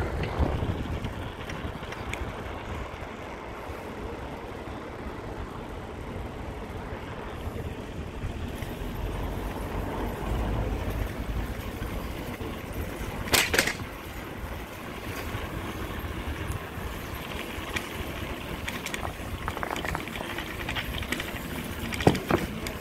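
Ride noise from a moving bicycle: steady wind rumble on the microphone with road noise. A short, loud sharp sound comes about halfway through and another near the end.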